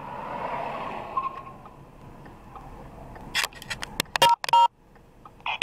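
A fading rush of traffic noise, then a series of short electronic beeps about three and a half seconds in, ending with a couple of longer beeps.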